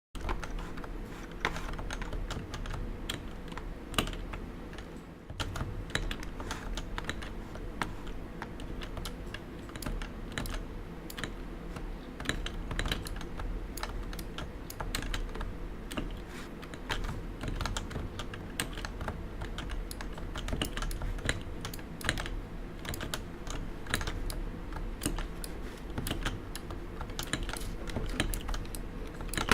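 Continuous fast typing on a Realforce 87U tenkeyless keyboard with 55 g Topre electrostatic-capacitive switches: many irregular keystrokes a second, with no pauses.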